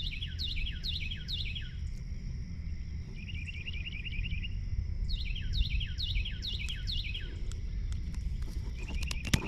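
Birds calling: runs of quick descending chirps, with a rapid trill between them, over a steady low outdoor rumble. A single sharp click sounds near the end.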